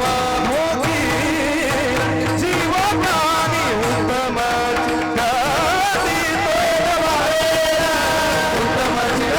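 Marathi devotional kirtan singing: a voice carrying a long, high, ornamented melodic line that wavers up and down, over a steady drone accompaniment.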